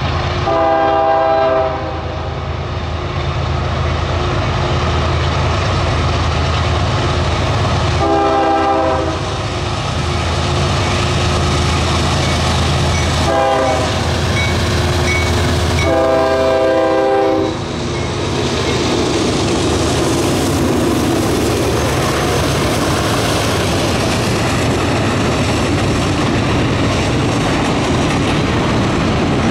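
A CSX freight train's diesel locomotive horn sounds the grade-crossing signal, long, long, short, long, over the low rumble of the approaching locomotives' diesel engines. After the last blast the locomotives pass, and a string of covered hopper cars rolls by with a steady rumble and wheel clatter.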